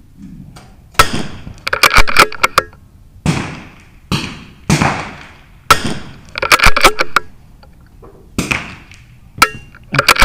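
22 LR rimfire rifles firing along a benchrest line: a quick, irregular run of sharp reports, some bunched close together, each with a short ring after it.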